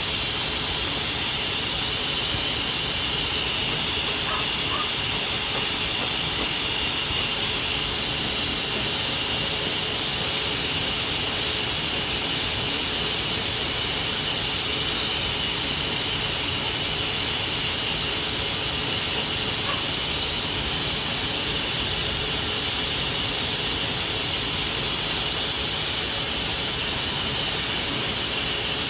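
Dog grooming blow dryer blowing air steadily, a constant hiss with no change in pitch.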